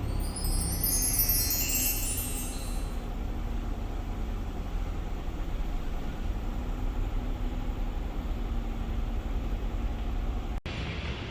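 A quick cascade of high, bell-like chime notes over the first few seconds, above a steady low rumble that runs on and breaks off briefly near the end.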